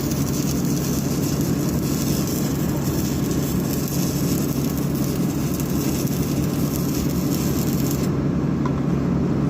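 Heavy machinery running steadily, with a constant low hum under an even mechanical noise.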